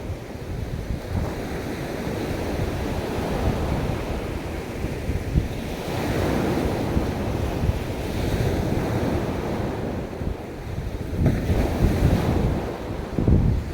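Ocean surf washing onto a beach, with wind rumbling on the microphone. The wash swells about six seconds in and again near the end.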